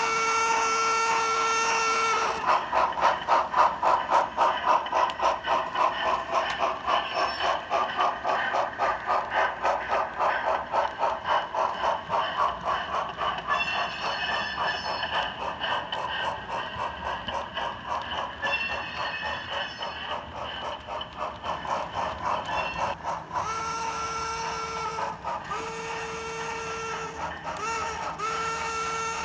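Steam locomotive sound: a chime whistle blows, then steady rhythmic exhaust chuffing runs for about twenty seconds with ringing in places, and the whistle comes back as long, long, short, long, the grade-crossing signal.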